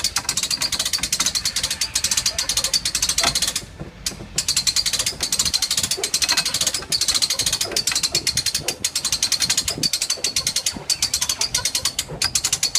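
Winch ratcheting as it hauls a refrigerator up onto a trailer: a fast, steady run of clicks that pauses briefly about four seconds in, then carries on.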